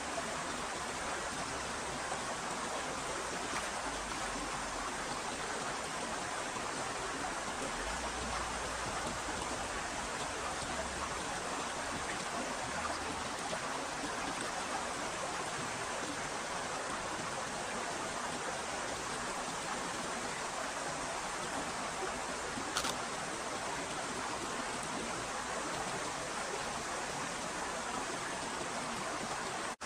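Steady rushing sound of water, with one short sharp click near the end.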